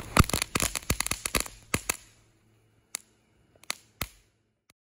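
Homemade crackling ball firework going off: a dense run of sharp crackling pops for about two seconds, thinning out to a few scattered single pops.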